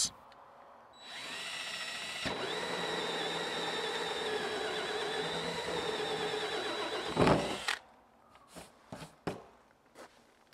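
Cordless drill spinning a hole saw through a plastic tank lid: a steady motor whine of about seven seconds, with a brief dip about two seconds in and a louder moment just before it stops. A few light taps and knocks follow.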